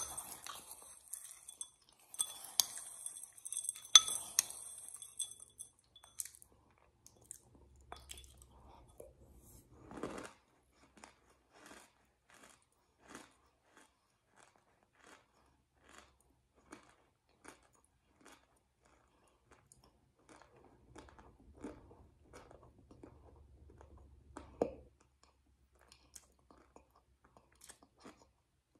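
A spoon scrapes and clinks against a glass wine glass, which rings for the first few seconds. Then comes close-up crunchy chewing with lip smacking, about one crunch a second.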